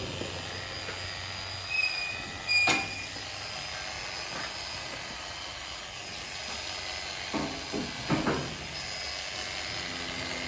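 Corded electric livestock clippers running steadily as they shave a cow's hair short at the brand site, with a few short knocks, the sharpest about three seconds in.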